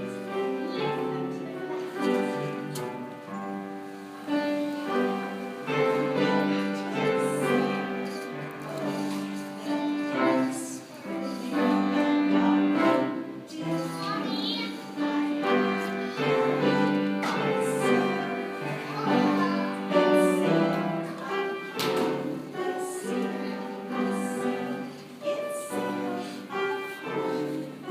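Music playing, classical in style, with held notes flowing on without a break and a couple of brief taps.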